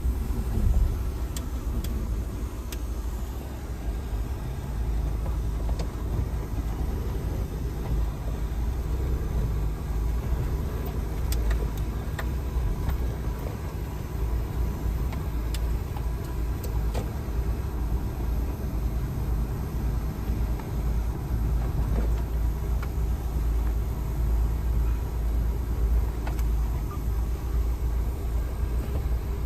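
Steady road and engine rumble of a car on the move, with a few faint clicks.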